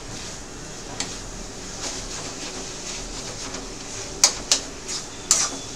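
Metal spatula scraping and stirring bitter gourd bhurji in an aluminium kadai as it is stir-fried, over a steady hiss. There are three sharp knocks of the spatula against the pan, about four seconds in and near the end.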